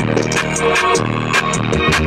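Electronic hip-hop music playing loud through a car's aftermarket audio system, the trunk subwoofers carrying a heavy bass line under sharp drum hits.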